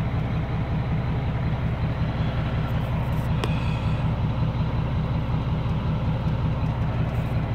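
A vehicle engine running steadily, a low, even rumble heard from inside the cab, with one faint click about three and a half seconds in.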